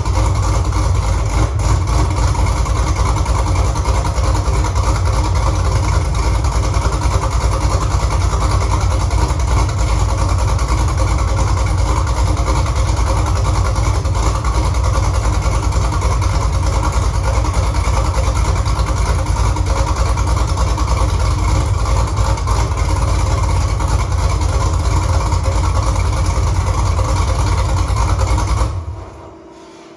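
Freshly swapped-in 6.2-litre LS V8 in a 1968 Camaro idling steadily during its first runs after the swap. The sound cuts off abruptly near the end.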